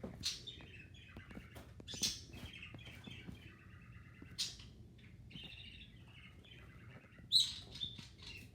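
Small birds chirping and chattering, with a few louder sharp calls, the loudest near the end.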